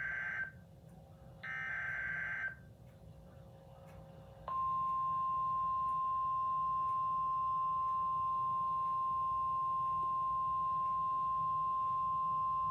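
Emergency Alert System weather warning: the end of one SAME header data burst and then one more, each a harsh digital screech of about a second. After a two-second pause comes the National Weather Service's steady single 1050 Hz warning alarm tone, which begins about four and a half seconds in and holds without change.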